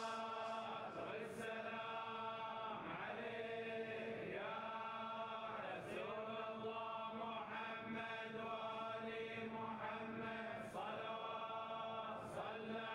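Male voices chanting a slow, melodic religious salutation refrain, held notes rising and falling in long phrases.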